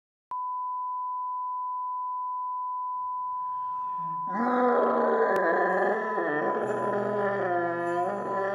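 A steady 1 kHz test tone, the kind that goes with TV colour bars, starts just after the beginning and keeps sounding. About four seconds in, a man's loud, drawn-out yelling cuts in over it, with a low drone underneath.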